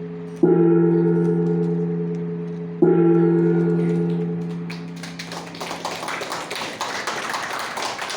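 A ceremonial gong struck twice, about two and a half seconds apart, each stroke ringing on and slowly dying away. Applause takes over about five seconds in.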